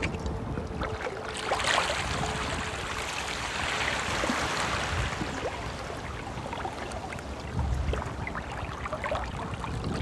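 A stream flowing steadily, with many small splashes and trickles of water. It swells louder about one and a half seconds in and eases back after about five seconds.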